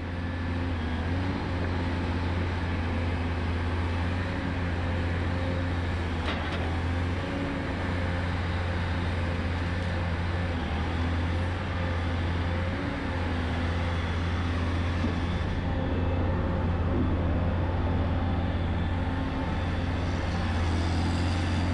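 Heavy diesel engines of a Volvo A30C articulated hauler and a Caterpillar 558 log loader running steadily with a deep, even hum. A single light knock comes about six seconds in.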